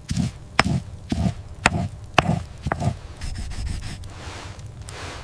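A series of six or seven sharp thudding knocks, roughly two a second, followed by a steady rubbing scrape over the last two seconds.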